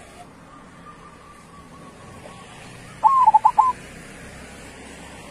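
Zebra dove (perkutut) singing one cooing phrase about three seconds in: a drawn-out arched note followed by three quick, clipped notes.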